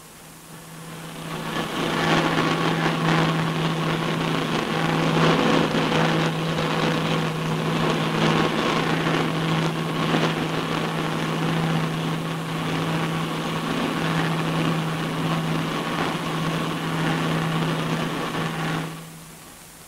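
Steady drone of a Short Sunderland flying boat's four radial engines in cruising flight, with one strong low hum running through it. It fades in over the first couple of seconds and stops shortly before the end.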